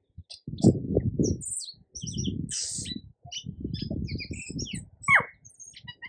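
Tui singing: a string of short high chirps, clicks and wheezy notes, with a falling whistle about five seconds in. Bursts of low rumble run underneath.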